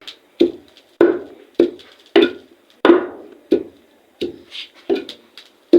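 About ten sharp knocks on wood at a steady pace, roughly one every half second or so, each with a short ringing tail: a repeated kitchen striking action such as chopping on a wooden board or pounding.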